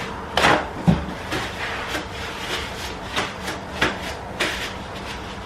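Tableware handled during a meal: two louder knocks in the first second, then a string of lighter clicks and taps of cutlery, plates and a glass.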